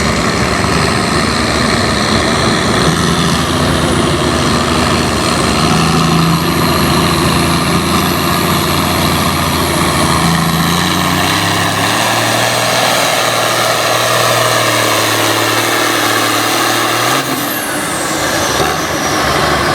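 Pulling farm tractor's engine running steadily after its pull, its pitch stepping down to a lower, slower note about twelve seconds in. A short falling whine near the end.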